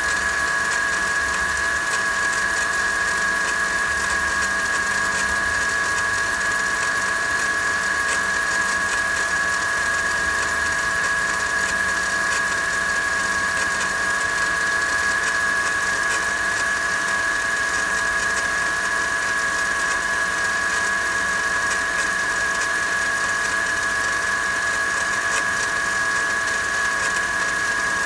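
Mercedes-Benz M273 V8 idling after a cold start, with a steady high-pitched squeal of belt friction and a faint, fast high-pitched crackle from the accessory belt drive. The belt wanders on its pulley and the tensioner jumps; the crackle came from worn idler pulleys and went away once both were replaced.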